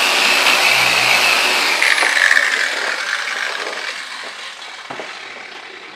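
Dual-action car polisher running with its polishing pad on the paint, switched off about two seconds in. Its hum stops, its high whine glides down, and the remaining noise fades away over the next few seconds as the pad spins down.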